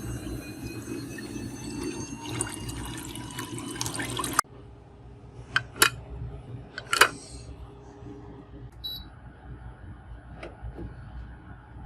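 3D printer running, its stepper motors whining in several slowly rising tones over a steady mechanical hum, cut off abruptly about four and a half seconds in. Then a few sharp clicks and taps, with a short high blip near the end.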